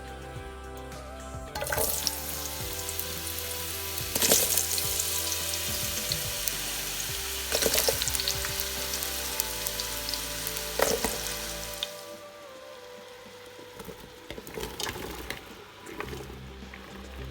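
Chopped squash, potato, carrot, onion and garlic hitting hot cooking oil in a pan and sizzling. The sizzle starts suddenly about a second and a half in, with a few knocks of a utensil against the pan. It drops away shortly before the end, leaving a few quieter clatters.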